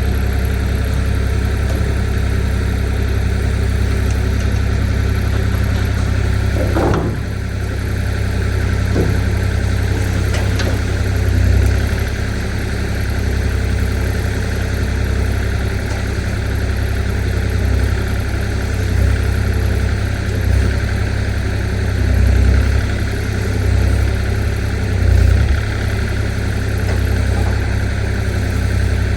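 Kubota KX040 mini excavator's diesel engine running steadily, with a brief rise in pitch about seven seconds in and short swells in level several times later on.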